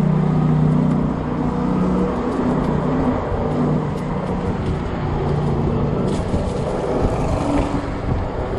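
Gusty wind buffeting the microphone of a moving fat-tire e-bike, a dense steady rumble with a low hum from the ride underneath.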